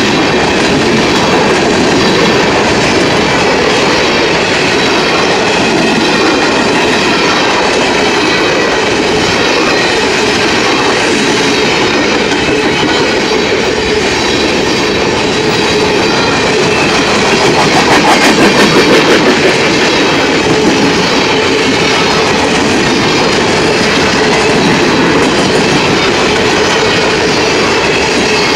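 Freight train of mixed tank cars, refrigerated boxcars and covered hoppers rolling past close by, wheels clattering steadily over the rails. It grows briefly louder, with a rapid ticking, about eighteen seconds in.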